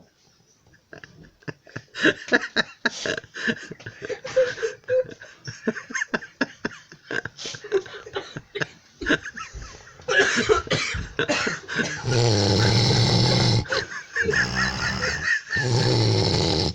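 Loud, comical snoring: a long run of rapid fluttering snorts, then from about twelve seconds in three long, loud snores with short breaks between them.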